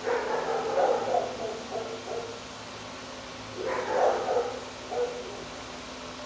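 Dogs barking in a shelter kennel: a run of several barks at the start, another cluster about four seconds in, and a single short bark about five seconds in.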